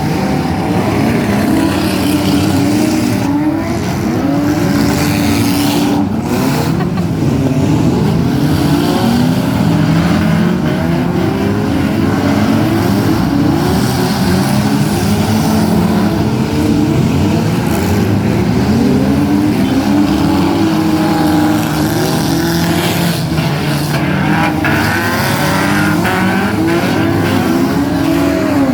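Several car engines running and revving at once in a demolition derby, their pitches rising and falling over one another. A few sharp knocks come through, about six seconds in and again near the end.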